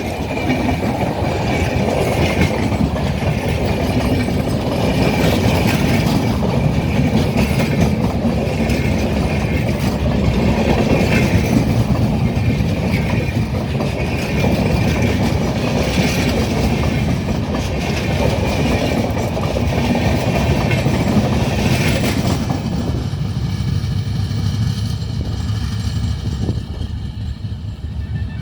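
SMVT Duronto Express passing at speed, its coaches' wheels clattering steadily over the rail joints. The clatter stops about 22 seconds in, leaving a lower steady rumble.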